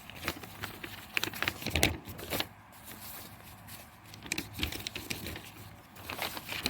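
Handling of a plastic CD jewel case and its paper insert: irregular clicks and paper rustling, with sharper clicks about a second in and again around four and a half seconds.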